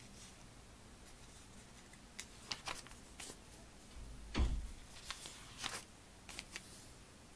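Glossy catalog pages being turned by hand: paper rustling in several short swishes starting about two seconds in, with a dull thump about four and a half seconds in.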